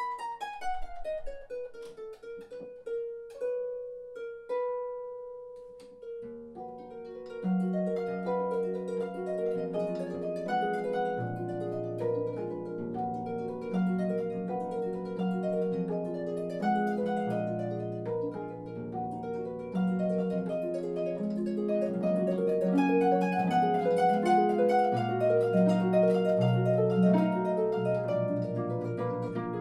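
Concert harp played solo. It opens with a falling run and a few sparse ringing notes, then about six seconds in moves into a fuller passage of bass notes under plucked chords, which grows louder near the end.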